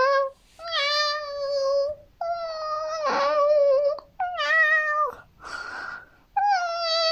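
A cat meowing over and over in long, drawn-out, wavering calls of a second or two each, one after another with short breaks.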